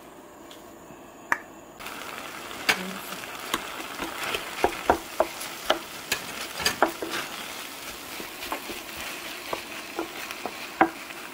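Rice frying in leftover tteokbokki sauce in a stainless steel pan, sizzling steadily from about two seconds in, while a wooden spatula stirs and chops it with frequent sharp scrapes and taps against the pan.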